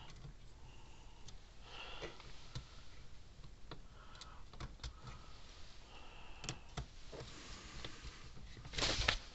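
Faint clicks, taps and scrapes of a screwdriver and parts being handled inside an opened electric fence charger's plastic case, with a few short high squeaks. A louder, brief scuffing noise comes just before the end.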